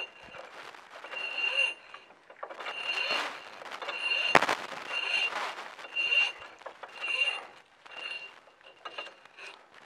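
Steel wire cable squeaking against metal in about nine short, high-pitched strokes, roughly one a second, as it is pulled hand over hand through the drum of a hand-crank winch. A sharp click about four and a half seconds in.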